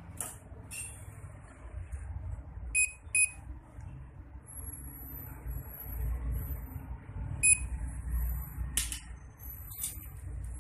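Short electronic beeps from a dental LED curing light hardening resin on a tooth: two quick beeps about three seconds in and one more about seven and a half seconds in. A high thin hiss comes and goes, and a sharp click sounds near nine seconds.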